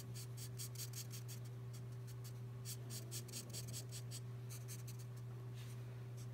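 Felt marker nib scratching on paper in many quick, short colouring strokes, several a second, over a steady low hum.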